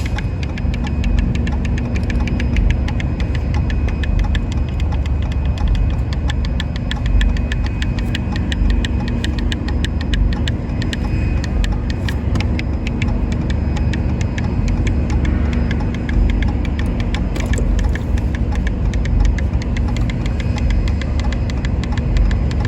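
Vehicle engine idling steadily, a low rumble with a light, rapid, regular ticking over it.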